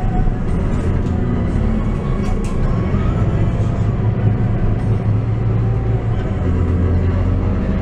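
Scania K230UB bus's rear-mounted five-cylinder diesel engine running while the bus is under way, heard from inside the passenger cabin. It is a steady low engine drone mixed with road and body noise.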